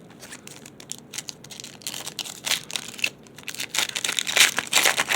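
A trading-card pack's plastic wrapper being torn open and crinkled by hand: irregular crackling that grows denser and louder over the last few seconds.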